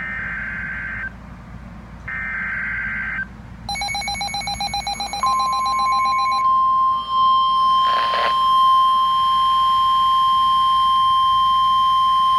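NOAA Weather Radio emergency alert. First come two one-second bursts of warbling SAME digital header data, then a few seconds of rapid beeping. After that the steady 1050 Hz warning alarm tone begins and holds.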